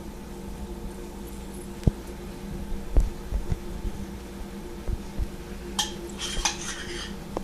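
Spoon knocking and scraping against a dish while spreading a mayonnaise and Parmesan mixture onto chicken: scattered light knocks, then a short run of scraping near the end, over a steady low hum.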